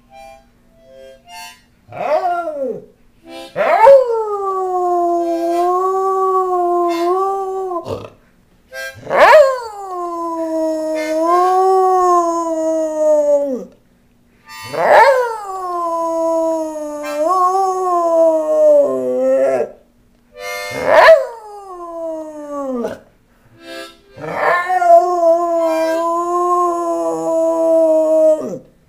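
A dog howling along to a harmonica: about six long howls, each starting high, sliding down and then held for up to about four seconds, with short breaks between them. A steady harmonica note sounds underneath.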